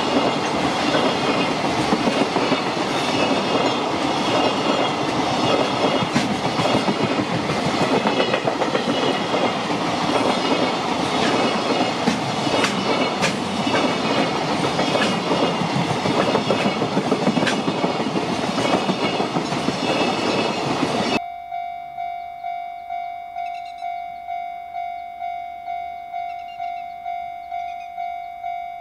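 A freight train of mostly empty Koki 104 container flatcars passing close by, its wheels clattering over the rail joints. About 21 seconds in it cuts off abruptly, and a quieter, steady ringing tone follows, pulsing a little more than once a second.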